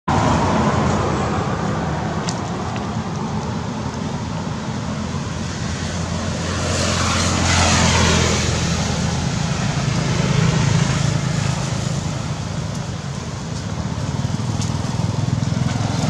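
Road traffic running steadily, with one vehicle passing close and louder about halfway through.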